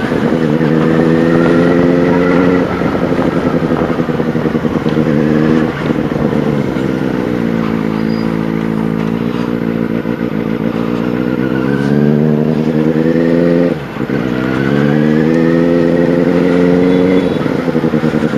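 Benelli 600i's inline-four engine, loud through an aftermarket IXIL exhaust, as the bike is ridden: the note climbs with the throttle and breaks off briefly at gear changes about six and fourteen seconds in, then falls as the bike slows near the end.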